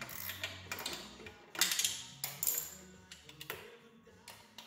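Hands knocking and rattling plastic and metal parts while working the airbox loose from a motorcycle frame, with a burst of clatter about one and a half seconds in. Background music plays throughout.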